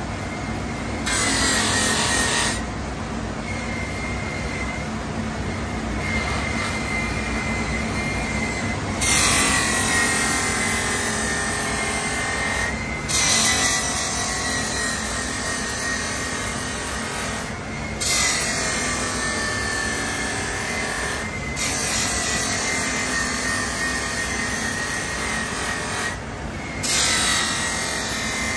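Bench polishing machine's motor whining steadily while a metal motorcycle muffler is pressed against its spinning abrasive wheel, making a loud hissing rasp. There is one short pass about a second in, then from about a third of the way in long passes of several seconds each with brief breaks. The whine drops a little in pitch as each pass loads the wheel.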